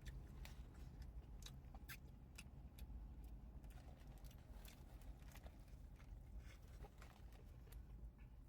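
Faint chewing of a burger: scattered wet mouth clicks over a steady low rumble.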